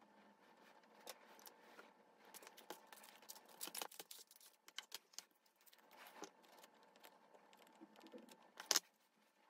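Clear plastic phone cases handled on a marble tabletop: soft scattered clicks and taps as they are picked up, slid and set down, with a sharper, louder click shortly before the end.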